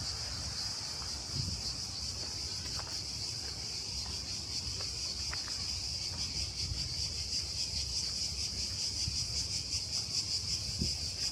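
Chorus of cicadas, a steady high-pitched buzzing drone, over a low rumble.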